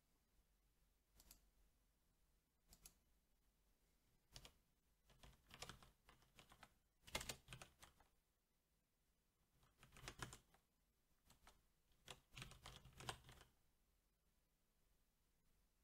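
Typing on a Steelseries 6Gv2 mechanical keyboard with Cherry MX Black switches: quiet key clicks in short bursts, one burst per typed answer, with pauses of a second or two between them.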